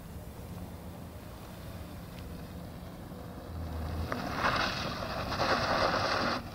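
Renault Mégane doing a donut on loose dirt: engine revving and tyres spinning. It becomes a loud rushing noise about four seconds in, then cuts off suddenly near the end.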